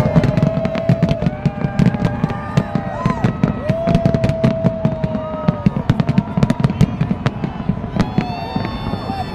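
Fireworks display bursting overhead: a dense, unbroken run of rapid bangs and crackles, several a second.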